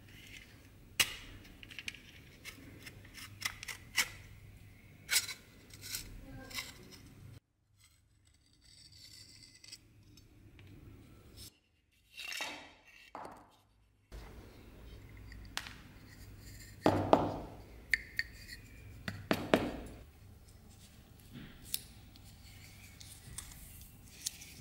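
Small metal clicks, taps and scrapes of rusty steel dagger-scabbard parts being worked by hand, scattered and irregular, with a few louder scraping clatters in the second half.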